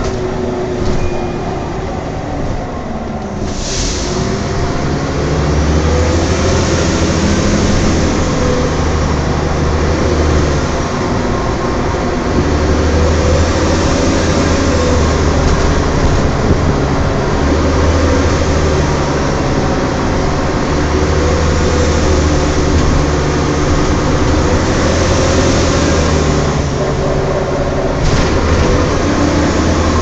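Volvo Olympian double-decker bus under way, heard from inside: the diesel engine and drivetrain run with a low hum that picks up about three seconds in, and a strange noise from the differential swells and fades every few seconds.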